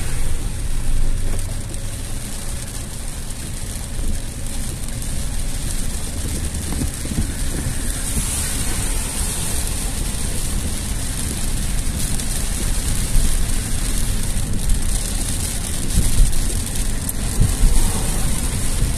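Heavy rain hissing steadily on a car's roof and windshield, over the low rumble of the car driving on the flooded road. It grows a little louder in places near the end.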